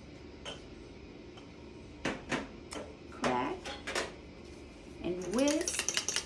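A metal utensil beating a raw egg in a small ceramic bowl, making rapid clinks several times a second from about five seconds in: an egg being whisked for egg wash. Before that come a few light knocks and short vocal sounds.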